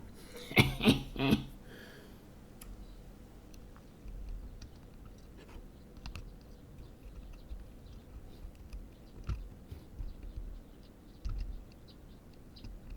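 A short burst of voice about half a second in, then light, scattered clicks and taps of small tools and parts being handled at a workbench during soldering repair work on a key fob's circuit board.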